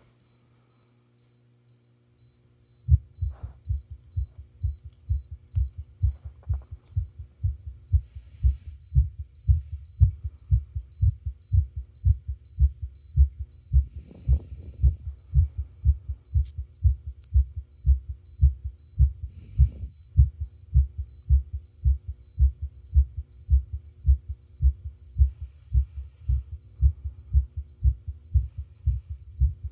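Human heartbeat, a steady low lub-dub rhythm that starts about three seconds in, with a faint steady hum under it and a few brief noises partway through.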